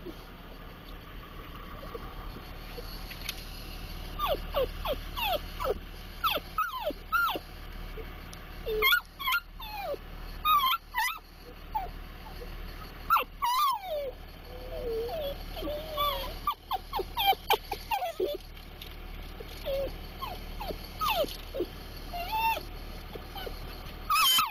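Dachshund whining and yelping again and again in excitement: short high cries that slide up and down in pitch, over the low rumble of the moving car.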